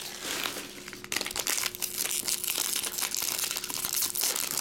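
Foil wrappers of trading-card packs crinkling and crackling as they are handled and torn open, sparse at first and denser from about a second in.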